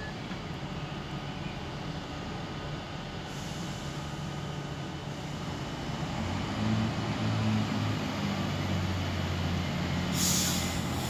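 Northern Class 158 diesel multiple unit drawing into the platform, its diesel engine running louder from about six seconds in, with a short burst of air hiss near the end.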